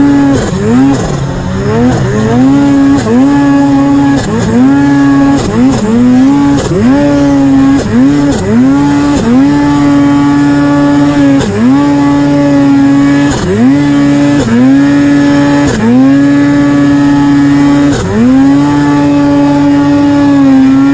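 Boondocker-turbocharged Polaris two-stroke mountain snowmobile engine run hard in deep powder. It holds a steady high note at full throttle, and many times its pitch dips and sweeps back up as the throttle is let off and opened again, most often in the first half.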